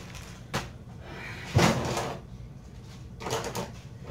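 A plastic zip-lock bag being handled, then kitchen cabinet knocks: a short click early, a louder knock with a brief rattle about one and a half seconds in, and smaller knocks near the end.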